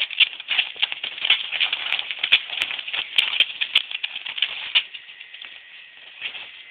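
A dog's claws clicking and scratching on a hard floor as it spins round and round, a quick irregular rattle that thins out after about five seconds.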